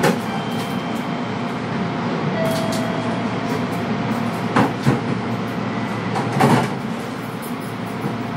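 Inside a Kintetsu train car standing at the platform before departure: a steady hum from the car's onboard equipment and air conditioning. Short knocks and clunks come through the middle, and a sharper thud near the end is followed by a quieter hum.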